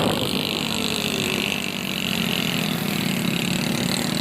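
Steady engine and road noise of a motor vehicle heard from inside it while riding.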